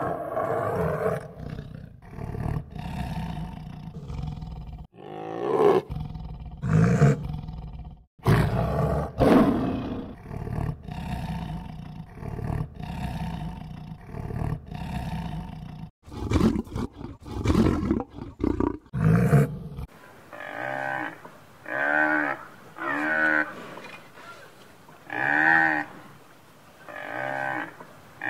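Tigers roaring and growling in a series of loud, irregular calls. About twenty seconds in, this gives way to a water buffalo calling, a run of short moo-like calls roughly one a second.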